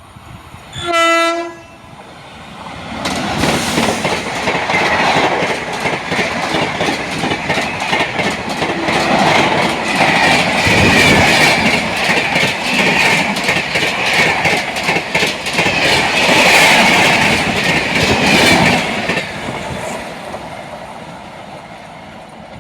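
A short train horn blast about a second in, then an express train running through at high speed: a loud rush with a rapid clickety-clack of wheels over the rail joints that fades away near the end.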